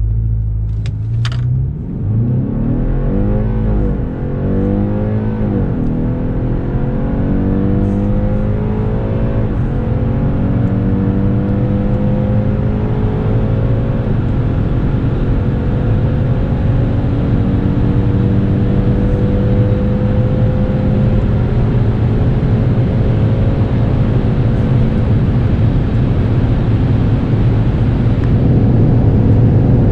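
BMW 530e xDrive plug-in hybrid's 2.0-litre turbocharged four-cylinder petrol engine at full throttle from a launch-control start, heard from inside the cabin. The engine note climbs and drops back at each upshift of the eight-speed automatic, with the shifts coming further apart as speed builds, over a rising rush of road and wind noise.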